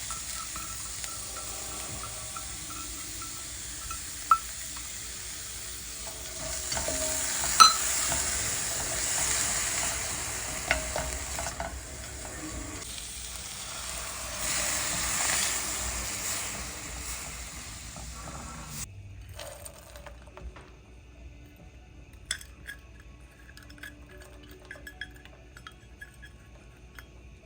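Food sizzling and frying in a pan while it is stirred, with a few sharp taps of a utensil against the pan. The sizzle cuts off suddenly about two-thirds of the way through, leaving a few light clinks.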